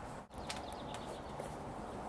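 Hand screwdriver turning a screw that fixes a plastic doorbell button to a wooden door frame: a few short clicks and creaks as the screw is tightened, over steady background hiss.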